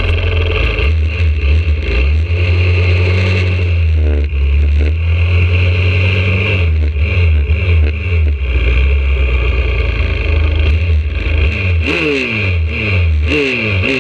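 YCF 125cc pit bike's single-cylinder four-stroke engine running close to the mic, holding a steady low note at first, then revving up and down several times near the end as the bike pulls away.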